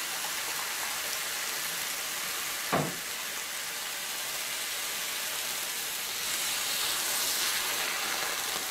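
Fish and vegetables sizzling in a hot frying pan. A single short knock comes about three seconds in, and from about six seconds the hiss grows brighter and louder as water is poured in from a measuring jug.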